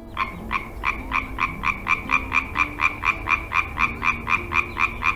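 Frog calling in a fast, even series of short croaks, about four a second.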